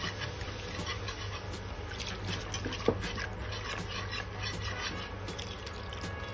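Milk pouring in a thin stream into a roux in a stainless steel pan while a wire whisk stirs it: wet sloshing with many light clicks of the whisk against the pan, and one sharper clink about three seconds in. A steady low hum sits underneath.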